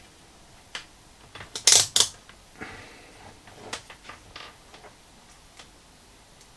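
Sharp clicks and small knocks from a motorcycle ignition switch being handled and switched while its connections are checked with a multimeter, with the loudest cluster of clicks about two seconds in.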